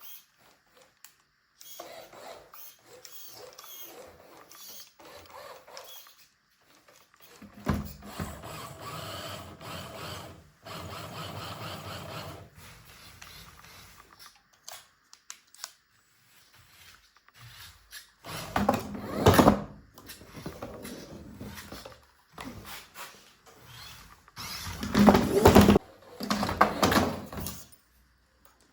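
Small electric motors and gearboxes of toy RC cars running in spurts, with knocks and scraping between; the loudest spells come about two-thirds of the way in and near the end.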